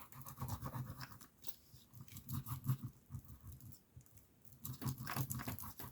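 Quiet, irregular crackling and rustling of paper and card pieces being handled.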